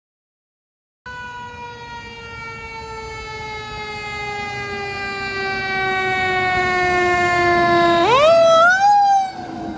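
Fire engine siren starting about a second in, its pitch sliding slowly down for several seconds, then quickly rising about eight seconds in and starting to fall again. It grows louder as the engine approaches.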